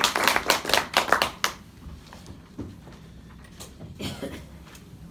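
A small group of people clapping, the applause dying away about a second and a half in, followed by a few faint knocks in the quiet room.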